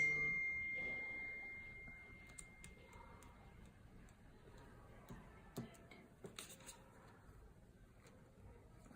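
A sharp knock at once followed by a clear single ringing tone that fades away over about three seconds, then a few soft taps.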